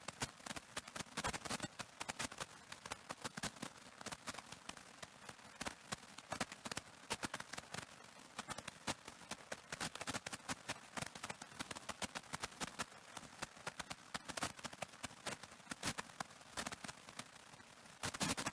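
Audio cassette playing back blank tape: a dense, irregular crackle of sharp clicks over a faint hiss, with a thicker cluster of crackles near the end.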